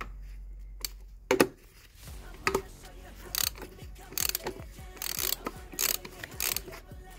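A sharp knock about a second in, then a ratchet wrench with a 27 mm socket clicking in short bursts as it unscrews the oil filter housing cap.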